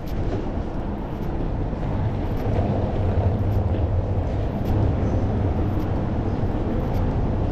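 Steady low rumble of city street ambience, like distant traffic, growing a little louder about two seconds in.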